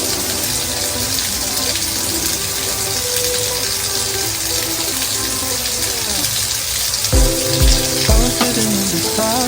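Tap water running steadily as hair is rinsed under it, with background music over it; a bass beat comes in about seven seconds in.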